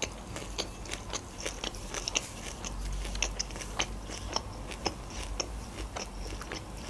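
A person chewing grilled chicken with the mouth closed: soft, irregular mouth clicks and smacks, several a second.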